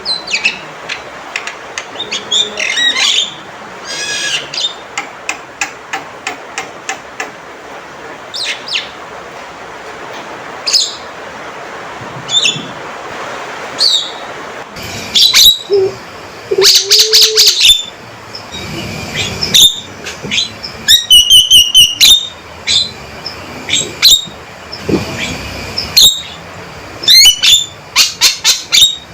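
Male Javan myna calling: a run of loud, sharp chirps and whistled notes, with quick bursts of rapidly repeated notes a little past the middle.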